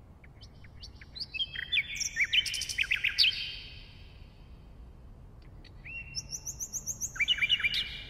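Common nightingale singing: two song phrases of rapid, sharp whistled notes with a pause between them. The second phrase opens with a held whistle and runs into a fast string of repeated notes near the end.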